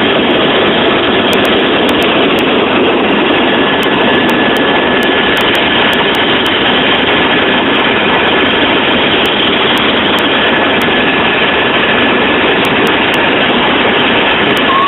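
Helicopter in flight: loud, steady engine and rotor noise with a thin, constant whine on top.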